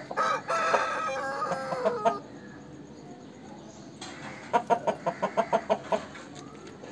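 Aseel rooster crowing, one call of about two seconds, followed a couple of seconds later by a quick run of about nine short clucks.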